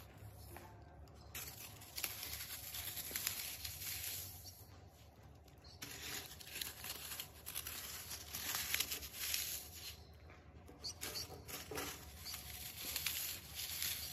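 Brittle carbon ash from a burnt black snake firework crunching and crumbling in a hand, with fragments pattering onto a steel plate in irregular crackles.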